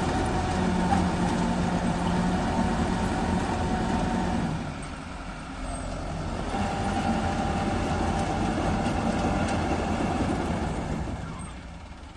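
Farmtrac tractor engine running steadily under load, driving a PTO-powered soil-loader machine that lifts earth into a trolley. The sound eases off about five seconds in, picks up again, then fades near the end.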